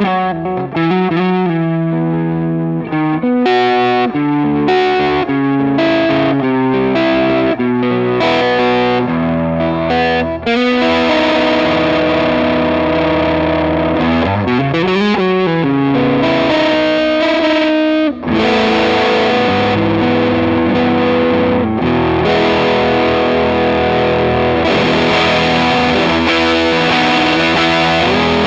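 Electric guitar, a Warmoth '72 Telecaster Deluxe-style partcaster with humbucking pickups, played through a distorted amplifier and heard through a microphone. Picked single notes and riffs fill the first ten seconds or so, then longer ringing chords follow, with a bend that rises and falls around the middle.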